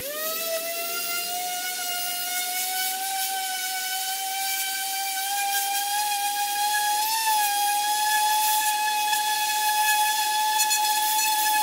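Random-orbit palm sander with an 80-grit disc sanding a sheet of canvas Micarta to rough up the surface: the motor starts up and its high whine climbs slowly in pitch over the first several seconds, then holds steady over the hiss of the abrasive on the sheet.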